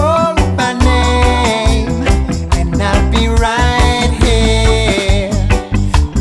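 Background reggae-style song with a steady beat and a sung melody.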